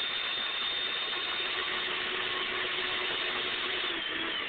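Electric vacuum cleaner motor running steadily with a high whine. Near the end it is switched off, and the whine starts to fall as the motor winds down.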